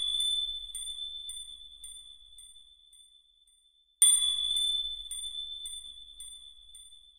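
A bright, bell-like ding rings out and fades over about three seconds, its echo repeating a little under twice a second. An identical ding strikes again about four seconds in.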